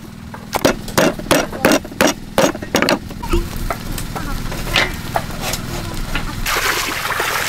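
Cleaver chopping raw pork on a thick wooden chopping block: about eight heavy chops, roughly three a second, over the first three seconds, then a few lighter knocks. A rushing hiss swells near the end.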